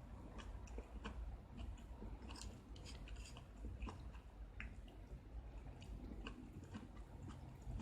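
Close-up chewing of crisp vegetables and ramen noodles: irregular faint crunches and wet clicks, a few each second.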